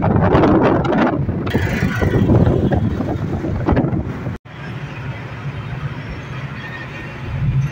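Wind buffeting a phone microphone held near an open car window while riding at speed, loud and gusty. After a sudden cut about four seconds in, this gives way to the quieter, steady road noise of the moving car heard from inside the cabin.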